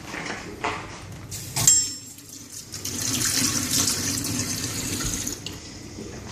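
A sharp ringing clink, then a tap running for about two and a half seconds before it is turned off.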